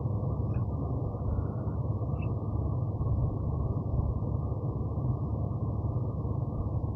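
Container freight train rolling past at close range, a steady, dull low rumble of wagons on the track heard from behind glass.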